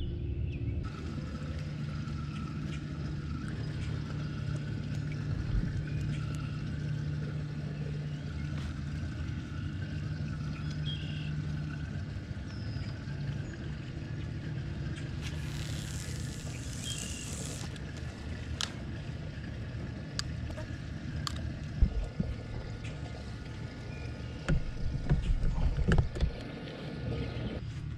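Knocks and thumps from someone moving about in an aluminium fishing boat, the loudest a sharp knock about two-thirds of the way in and a cluster of thumps near the end. Under them runs a steady low hum, and midway a hiss of about two seconds comes just after a cast with a spinning rod.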